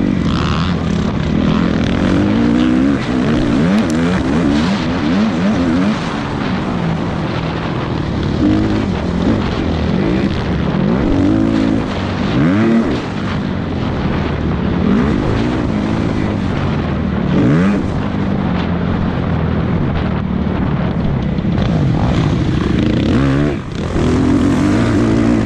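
Motocross bike engine revving hard, its pitch climbing and dropping every second or two over a steady rushing noise.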